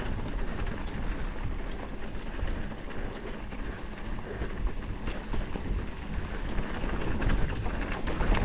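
Mountain bike riding downhill on a dirt trail, heard through a point-of-view action camera: a steady rush of wind and rolling rumble over the microphone, with rapid scattered clicks and rattles from the bike over the rough ground.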